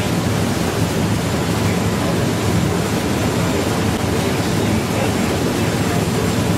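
Steady rush of wind and sea water past a moving boat, with a low engine hum underneath.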